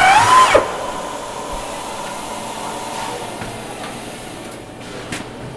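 Pneumatic air nibbler running as it cuts along a strip of sheet metal: a steady hiss of exhaust air with a thin whine. It is loudest in the first half second, then fades slowly.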